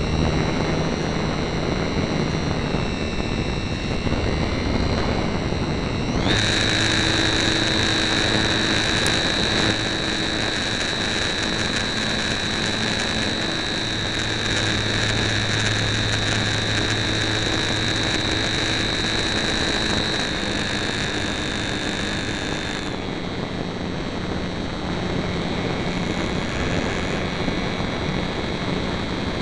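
Electric motor and propeller of a HobbyZone Super Cub RC airplane whining in flight, heard from a camera on the plane. The pitch jumps up and gets louder about six seconds in as the throttle is opened, holds steady, then drops back near the end.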